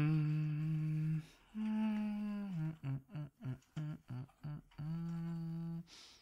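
A man humming with closed lips: a long low note that slides down as it starts, a higher held note, a quick run of short notes, then another long low note.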